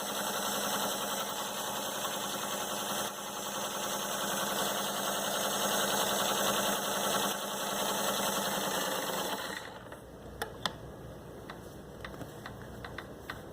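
Kenmore Tri-Span 88 sewing machine running steadily as it stitches, pretty quiet, its gears freshly re-greased and fitted with a new belt. It stops a little under ten seconds in, followed by a few light clicks.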